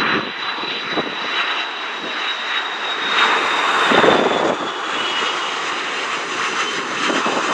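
Jet engines of a rear-engined McDonnell Douglas twin-jet airliner on final approach, gear down, passing low and close: a steady loud roar with a thin high whine that sinks slightly in pitch as the plane goes by, swelling about four seconds in.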